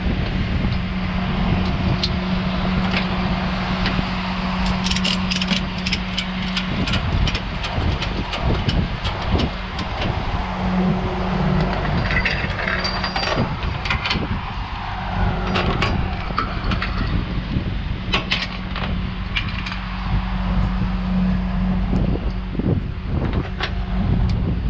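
Truck engine running with a steady low hum that breaks off about seven seconds in and later returns, with many sharp metallic clinks and clanks over road and wind noise.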